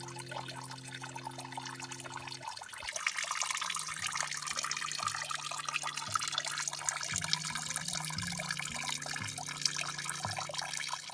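Stream water flowing steadily with a splashing, trickling hiss, with soft background music of held low notes underneath.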